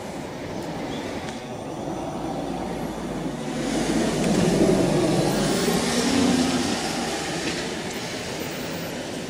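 A heavy vehicle passing close by: a steady rumbling run-by noise that swells to its loudest about four to six seconds in and then fades.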